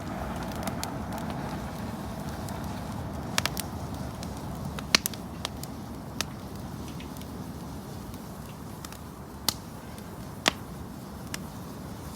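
Wood fire burning: firewood cracking and popping in sharp, scattered snaps, a few seconds apart, over a steady rushing noise of wind.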